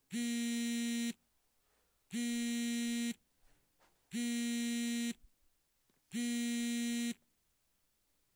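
Electronic buzzer beeping four times, each a steady harsh tone about a second long, repeating every two seconds.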